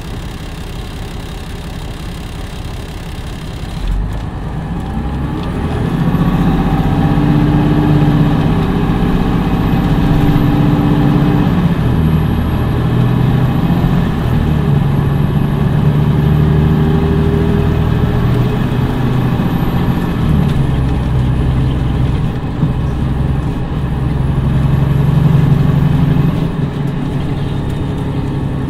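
Cummins ISM diesel engine of a 2011 MCI D4505 motor coach, running steadily at first. About four seconds in it gets louder and its pitch rises and falls several times as the coach pulls away and accelerates through the Allison automatic's gears.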